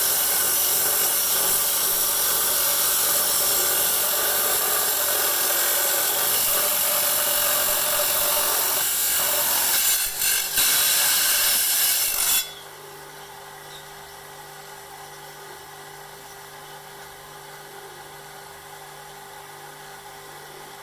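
Power saw blade grinding through an agate rock with a loud, steady, high rasp that dips briefly; about twelve seconds in the grinding stops suddenly, leaving a much quieter steady hum.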